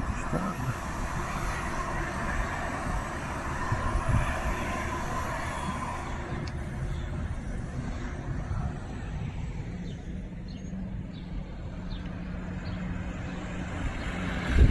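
Road traffic: cars passing along a street, a steady noise that is louder in the first half.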